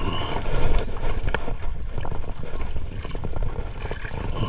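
Steady wind and water noise aboard a small boat at sea, heaviest in the low rumble, with a few short faint clicks scattered through.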